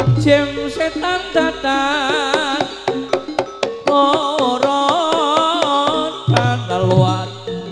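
Live jaranan ensemble music: a wavering melodic lead with vibrato over sharp drum strokes. The deep bass drops out shortly after the start and comes back near the end.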